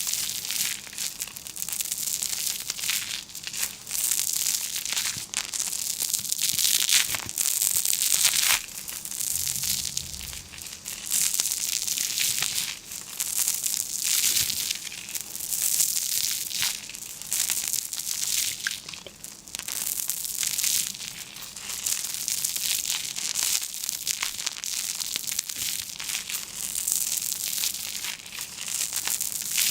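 Continuous crinkling and crunching of a material being handled, rising and falling in uneven strokes every second or two, full of small crackles.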